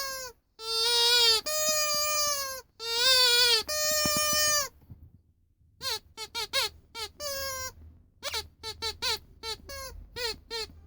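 Rubber squeaky toy shaped like a yellow dog being squeezed: four long, high squeaks of about a second each, then after a short pause a fast run of many short squeaks.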